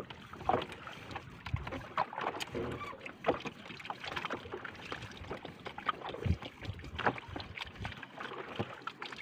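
Small fishing boat on the water: water lapping against the hull with irregular knocks and bumps on the boat.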